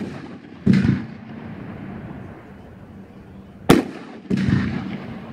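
A 500 gram consumer fireworks cake firing aerial shells: two shots about 3.7 seconds apart, each a sharp crack followed under a second later by a duller, longer bang.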